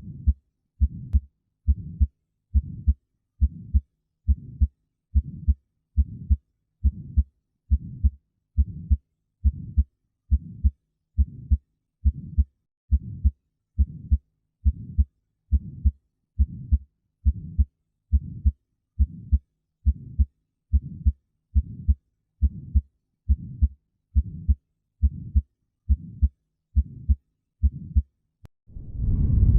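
Heart sounds heard through a stethoscope: a regular low heartbeat at about 70 beats a minute. Near the end the beats stop and give way to a low rushing noise.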